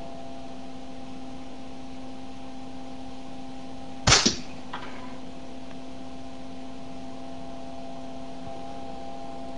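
Sharp electrical crack about four seconds in, with a smaller crack right after it: a high-voltage capacitor-bank discharge making a spark jump the gap between the barely touching ends of a wire loop. A steady electrical hum runs underneath.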